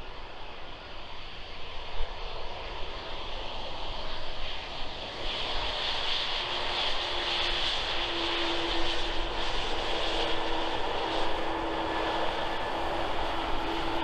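Embraer E190's two turbofan jet engines on the landing roll: a steady jet rush that grows louder about five seconds in, with a steady low whine joining soon after.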